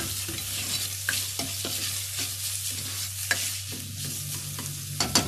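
Chopped onion and rice sizzling in hot oil in a pot while a spatula stirs and scrapes through them, with a few sharp knocks about five seconds in.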